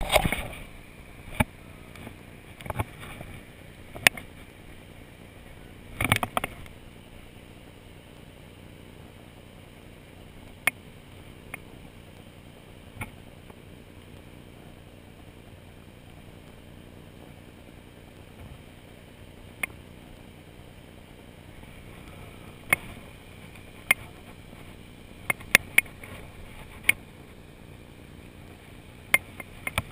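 Steady rush of a shallow, rocky stream, with scattered sharp clicks and knocks. A short cluster of knocks comes about six seconds in, and several more come close together near the end.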